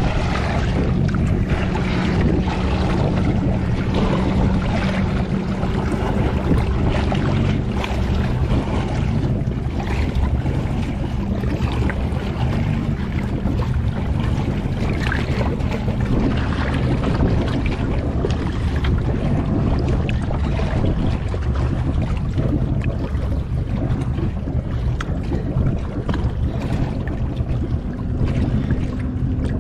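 Choppy water lapping and splashing at the waterline around a swamped boat's flooded deck, with wind buffeting the microphone and a boat engine's steady low hum underneath.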